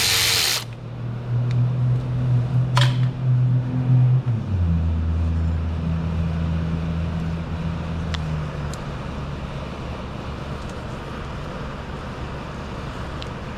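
A power tool runs and stops sharply just under a second in. A low steady mechanical hum follows, drops in pitch about four seconds in and then fades, with a few light metallic clicks of tools.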